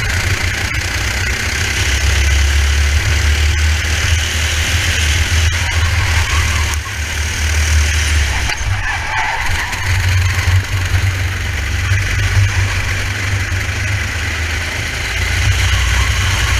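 Racing go-kart engine running at speed, heard from a helmet-mounted camera, with heavy wind rumble on the microphone.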